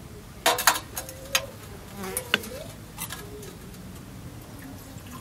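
A metal teapot and small tea glasses clinking on a metal tray, a handful of sharp taps in the first three seconds, with an insect buzzing faintly.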